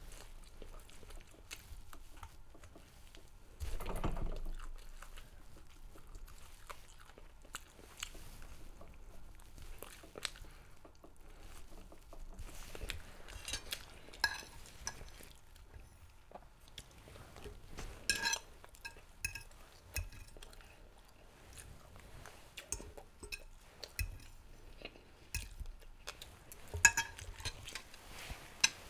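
Close-up eating sounds: chewing chicken wings, with scattered clinks and scrapes of a plate and fork as food is picked from it. About four seconds in there is a brief, louder muffled sound.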